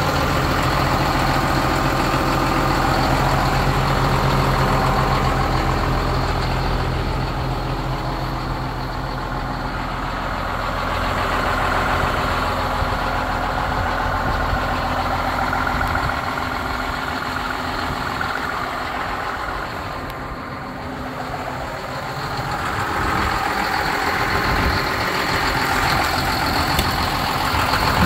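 John Deere 6820 tractor's six-cylinder diesel engine idling steadily, dipping in loudness about three-quarters of the way through and rising again near the end.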